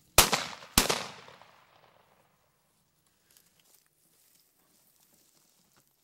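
Two shotgun shots in quick succession, a little over half a second apart, with the echo fading over about a second after the second shot.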